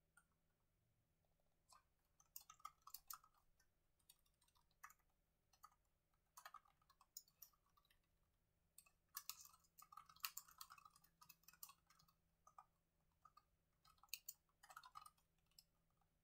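Faint typing on a laptop keyboard: quick, irregular runs of key clicks that start a couple of seconds in and are busiest about halfway through.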